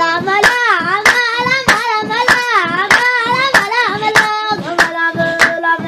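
A high voice singing a wavering, ornamented melody over steady hand-clapping, about three claps every two seconds.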